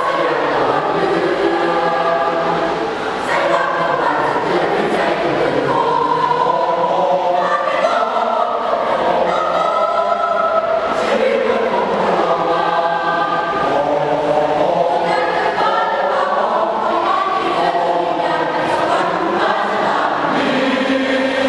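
School choir singing in harmony, many voices holding and moving through sustained chords.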